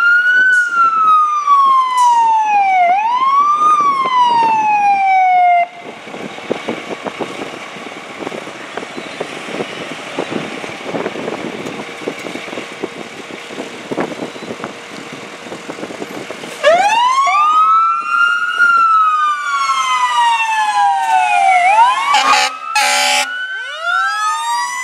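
Fire apparatus electronic sirens wailing, rising and falling in pitch, cutting off about six seconds in. Then a diesel truck engine rumbles for about ten seconds before the wail starts again, with two short air horn blasts near the end.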